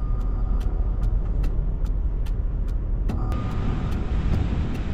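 Strong wind rumbling against a vehicle: a steady deep rumble, with faint ticks about two or three times a second.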